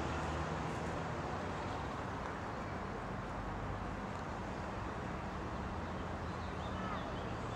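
Steady outdoor background noise: a low, even rumble with a faint hiss over it.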